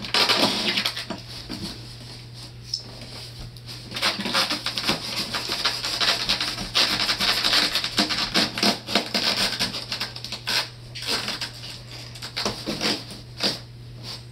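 A knife blade scraping and sawing into the top of a white cardboard box, cutting a hole: rasping scratches in spells, busiest in the first half and sparser toward the end.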